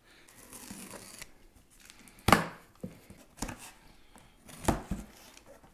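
Cardboard mailing box being opened by hand: light rustling, then three sharp rips or snaps of the cardboard and tape about a second apart, the first the loudest.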